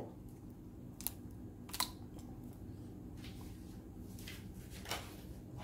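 Faint handling sounds as a container of yogurt is emptied onto seasoned chicken thighs in a bowl: two sharp clicks about a second and two seconds in, then a few soft rustles.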